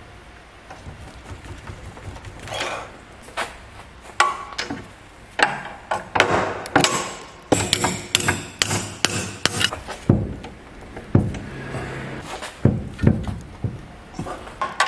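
Hammer striking metal under a BMW E46's rear axle, a run of irregular sharp blows with a short ring, knocking at a stuck rear camber arm bolt. The blows start about two and a half seconds in and come thick and fast from about four seconds on.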